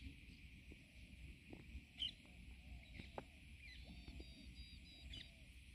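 Near silence: faint pond-side ambience with a steady high hiss, a few faint high chirps past the middle, and a soft click about two seconds in.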